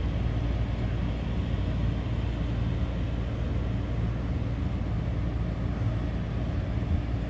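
Steady low rumble of road traffic, with a faint low hum underneath.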